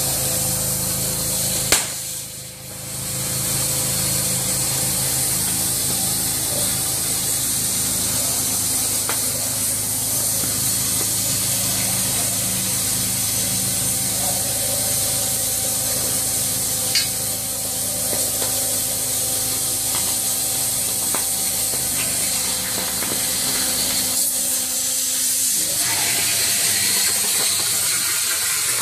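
CNC cutting torch burning through steel plate: a steady hiss with a low hum beneath it. A sharp click comes about two seconds in, and the hiss dips briefly just after it.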